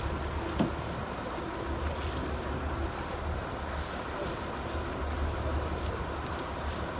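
Boat engine idling with a steady low hum, with water lapping and small splashes at the hull as an ocean sunfish swims at the surface alongside.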